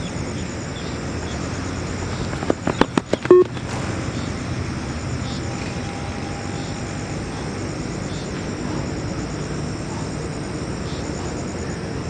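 Yo-Yo intermittent recovery test audio: a single short electronic timing beep about three and a half seconds in, marking the pace of the shuttle run. It comes just after a quick run of about six sharp clicks, over steady background noise.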